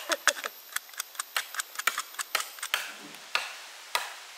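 A rapid train of sharp ticking clicks, about five a second, with a faint high steady tone behind it; a little under three seconds in, the tone stops and the clicks thin out to occasional single ones.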